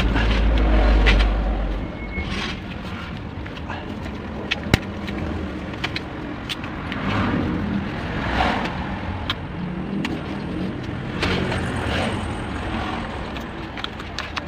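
Hands working in an engine bay, moving rubber hoses and the plastic timing cover: rustling with scattered clicks and knocks, and one sharp click about five seconds in. A low rumble underlies the first two seconds.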